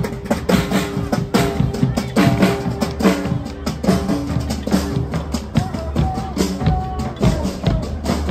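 A marching drum band plays a continuous rhythm on large bass drums and smaller snare-type drums carried on harnesses.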